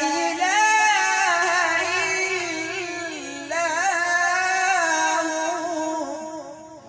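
A man reciting the Quran in the melodic, drawn-out tilawat style through a microphone. He holds one long ornamented phrase whose pitch wavers and turns, and it fades away near the end.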